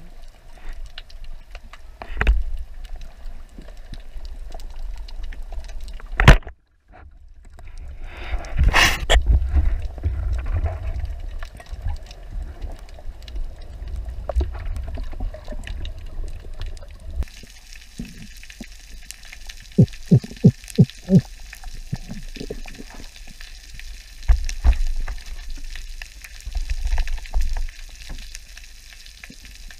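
Underwater sound through a camera housing: a steady hiss with bubbling water. About six seconds in comes a single sharp crack, the loudest sound, from a speargun firing, and near the middle a quick run of about six short knocks.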